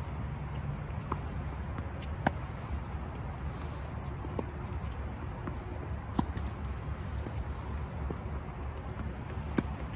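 Tennis rally: racquets striking the ball back and forth, a sharp pop every couple of seconds, with the near player's hits loudest, over a steady low background rumble.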